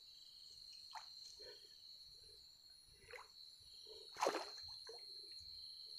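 A hooked dwarf snakehead splashing at the water surface on a set line, a few short splashes with the biggest about four seconds in. A steady high insect trill runs underneath.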